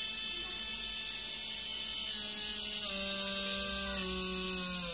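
G-Force 13.5-turn brushless RC motor free-running with no load, a steady high-pitched electric whine over a lower hum. In the second half the pitch steps down slightly as it slows a little.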